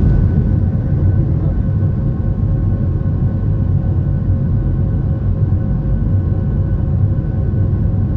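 Steady cabin roar of a jet airliner's engines in flight, a deep even rumble with a few faint steady whining tones above it.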